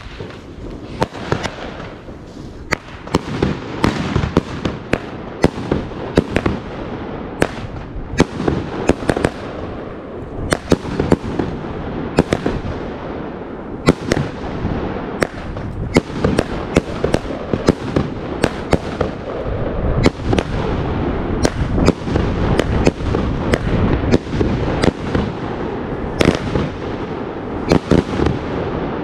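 Fireworks and firecrackers going off in mass: dozens of sharp bangs at irregular intervals over a continuous crackle and rumble.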